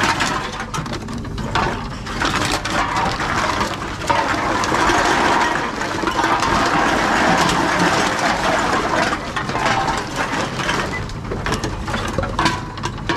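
Aluminium cans and plastic bottles clinking and rattling as they are handled in wire shopping trolleys and fed into TOMRA reverse vending machines, with the machines' intake mechanism running. The clatter is denser in the middle.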